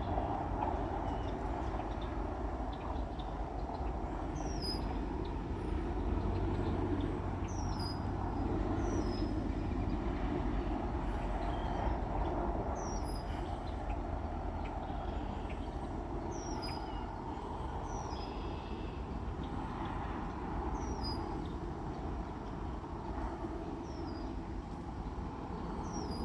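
A steady low rumble, with a bird repeatedly giving a short, high chirp that slides downward, every one to four seconds.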